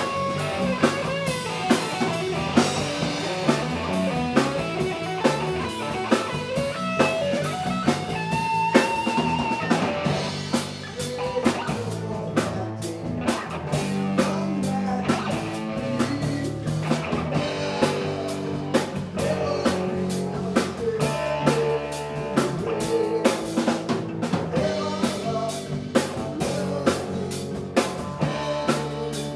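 Live rock band playing: electric guitar over bass guitar and drum kit, with bending, wavering guitar-range notes in the first ten seconds.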